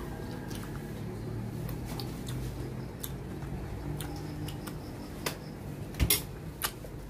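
Eating noises: scattered small clicks and smacks of chewing and handling food, with two sharper clicks about six seconds in, over a low steady hum.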